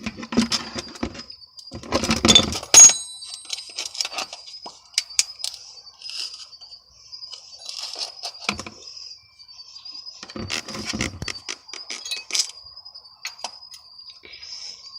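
Socket ratchet clicking and clinking in several short bursts while loosening the 15 mm oil drain plug on the oil pan of a 2002 Chevy Avalanche.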